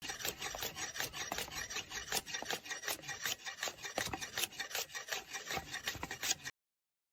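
Quick, irregular scraping strokes, like a rasp or abrasive working a surface, many strokes a second. It cuts off suddenly about six and a half seconds in.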